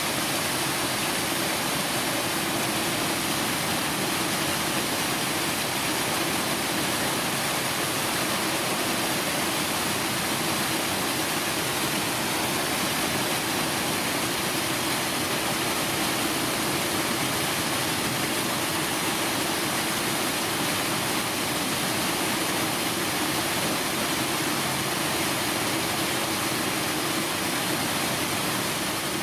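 Steady, even rushing noise with no separate events, of the kind made by running water.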